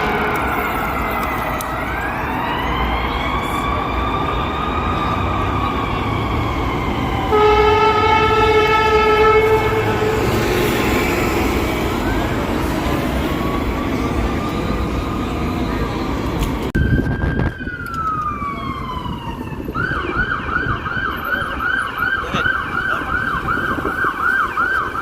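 Fire engine and ambulance sirens wailing in slow rising and falling sweeps, broken by a steady air horn blast of about two seconds roughly a third of the way in. Near the end the siren drops in a long falling sweep and switches to a fast, rapidly repeating yelp.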